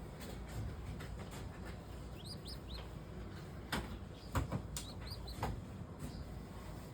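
A small bird chirping in two quick runs of three or four short, high, rising notes. A few sharp knocks or taps sound in between, the loudest about four and a half seconds in, over a steady low background noise.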